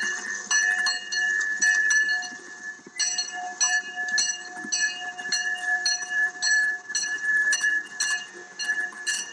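Steam locomotive bell ringing steadily, about two strokes a second, on a Fort Wilderness Railroad 2-4-2T tank engine, over a faint steady tone that fades out about seven seconds in.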